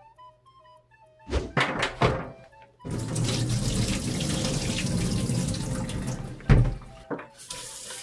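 Water pouring out of a tipped plastic bowl of soaked soybeans into a stainless steel sink, a steady splashing for about four seconds. The bowl is then set down with a thunk, and the tap runs onto the beans to rinse them. A few knocks of the bowl come before the pour, over faint background music.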